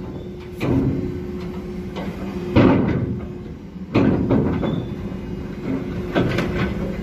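Hydraulic clamshell grab bucket working in a hold of iron ore: four heavy metal clunks and scrapes, the middle two loudest, each trailing off in a short grinding rush of ore. Under them runs a steady machinery hum.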